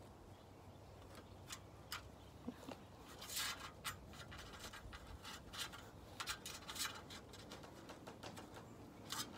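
Metal grooming comb drawn through a Bichon Frise's curly coat, faint short strokes: a few single ones at first, then quicker runs from about three seconds in.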